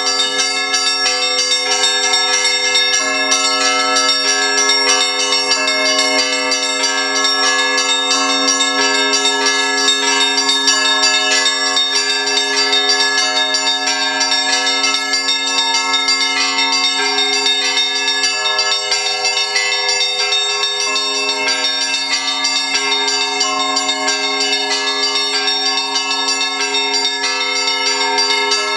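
Orthodox church bells ringing in a continuous peal, several tones overlapping and sounding on without a pause.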